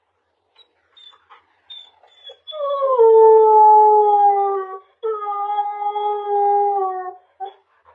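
Husky puppy howling: a few short yips, then two long howls of about two seconds each, each sliding down in pitch.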